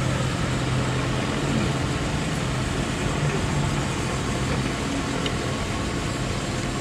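A steady low motor hum over constant background noise, level throughout.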